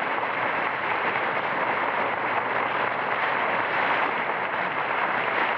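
Ocean surf sound effect in a radio drama: a steady rushing of waves on the shore.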